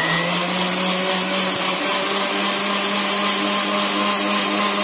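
Electric kitchen mixer grinder running at a steady speed, blending a jar of biscuits and milk into a liquid. The motor hum climbs in pitch briefly at the start as it comes up to speed, then holds level.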